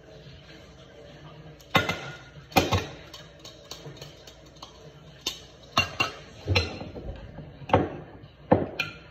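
A yellow plastic garlic press and kitchen utensils knocking and clinking against a glass bowl: about ten sharp, irregular knocks with short ringing, starting about two seconds in.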